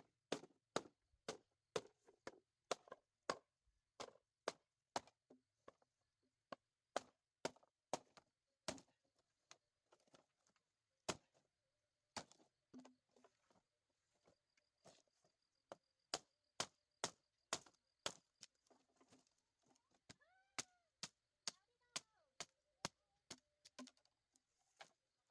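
Repeated sharp tool strikes, about one to two a second with a few short pauses, as in hammering or chopping on a repair job. A brief pitched animal call, rising and falling, comes in about twenty seconds in.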